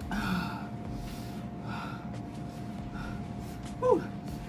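A person breathing hard in and out through the mouth, with sharp gasps and snorts, the kind of breathing that comes from the heat of Scorpion hot sauce. Small mouth clicks come in between, and near the end there is one short vocal sound that falls in pitch.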